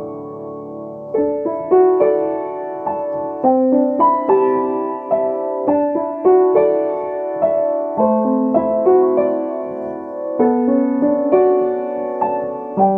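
Solo piano playing a flowing run of notes that ring on into one another, after a chord held for about the first second.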